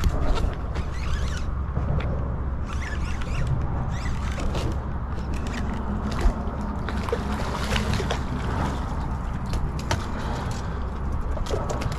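Water sloshing and splashing around a small skiff as a hooked black drum is fought at the surface beside it, over a steady low rumble of wind on the microphone. A single sharp knock comes about six seconds in.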